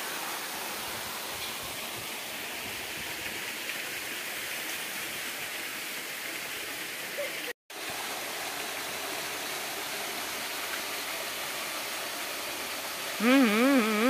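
Steady rush of a small waterfall pouring into a rock pool, with a brief break just past halfway. Near the end, a person's voice calls out briefly, its pitch wavering up and down, louder than the water.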